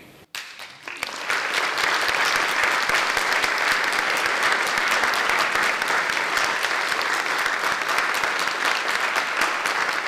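Audience applauding, starting about a second in and holding steady.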